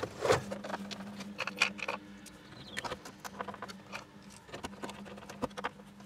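Small clicks, taps and scratchy rustles of wiring, connectors and plastic dash trim being handled and pushed back into a car dashboard, over a faint steady hum.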